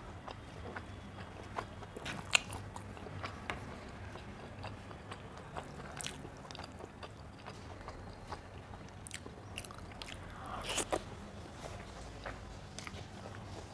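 Close-up eating sounds of someone chewing a meal of rice and curry: wet mouth clicks and smacks scattered through, the loudest about two seconds in and a few together around ten seconds in.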